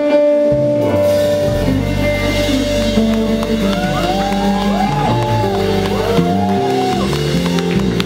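Live band performance: a female voice holds a long note, then sings bending, wavering runs, over keyboard, electric guitar and a bass line that comes in after about a second and a half.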